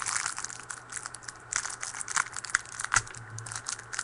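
A foil trading-card pack wrapper crinkling and tearing as it is opened by hand, an irregular run of sharp crackles.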